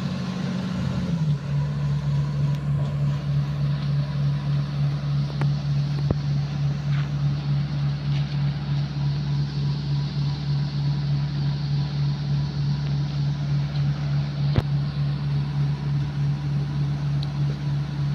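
Diesel engine of heavy equipment running steadily, its hum dropping slightly in pitch about a second in and then holding even. A sharp knock is heard about fourteen seconds in.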